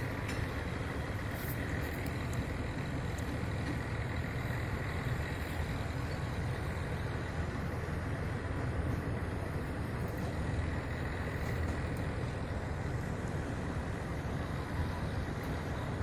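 Steady low rumbling noise with a faint high whine running through it.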